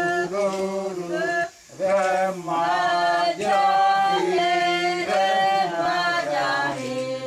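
Singing of a Uitoto fruit-ritual chant: long held notes in phrases, with a short break about a second and a half in, beginning to fade near the end.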